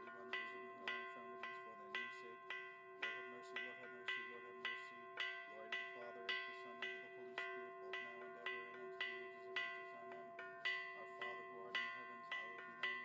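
Church bells ringing in a steady rhythm, about two strokes a second, with several bells of different pitches ringing on between the strikes.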